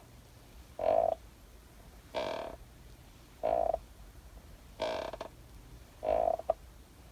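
Rocking chair squeaking as it rocks back and forth: five squeaks, about one every second and a quarter, alternating between a lower squeak and a higher one.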